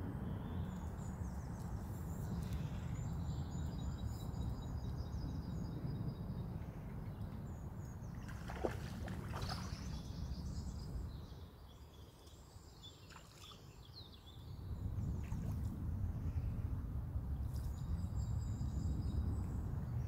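Outdoor ambience: a steady low rumble that drops away for a few seconds past the middle, with small songbirds singing repeated high chirps and trills. A brief sharper noise comes about nine seconds in.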